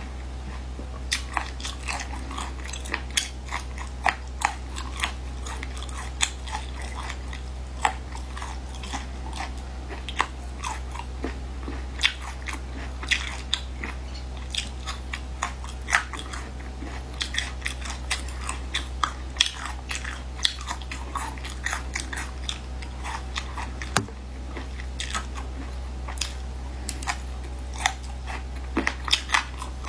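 Close-miked chewing and biting of chewy beef-skin strips: many sharp wet mouth clicks, several a second, over a steady low hum.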